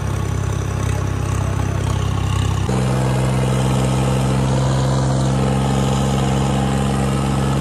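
John Deere tractor's diesel engine running steadily while the tractor drives along. The engine note shifts abruptly about a third of the way in, then holds steady.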